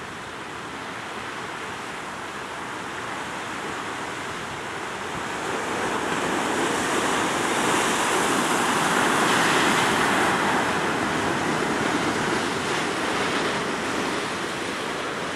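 Ocean surf: a steady rushing wash of waves that swells to its loudest about halfway through, then eases off.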